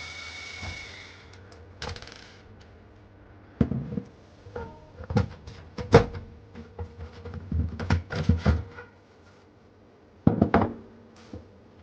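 Cordless drill running as it backs out a screw, stopping about a second in, then a second short burst. Then a run of knocks and clatters as the recorder's cover is lifted off and handled, with a last pair of knocks near the end.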